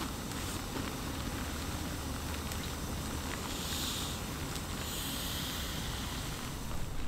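Stainless steel kettle heating water on a small camp stove: a steady low rumble with hiss, the water coming up toward the boil. The hiss swells twice in the second half.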